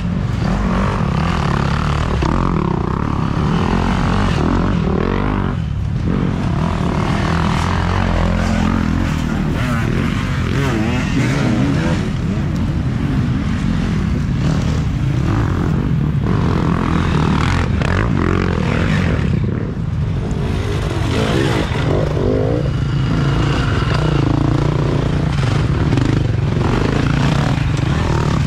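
Off-road dirt bike engines revving and running, their pitch rising and falling as riders work the throttle through a tight wooded section.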